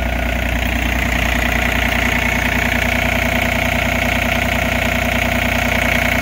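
Komatsu PC30MR-5 mini excavator's diesel engine idling steadily, heard with the engine cover open.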